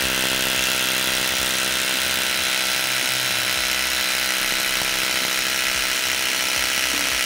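Aegon AHD 201 rotary hammer drill running steadily, its masonry bit boring through plaster into brick.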